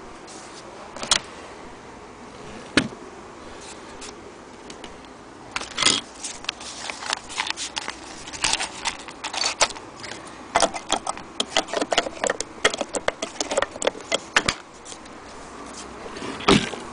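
Antique Singer 28K hand-crank sewing machine being handled, making metallic clicks and rattles: two sharp clicks in the first few seconds, then a dense, irregular clatter of clicks for about nine seconds, and a louder knock near the end.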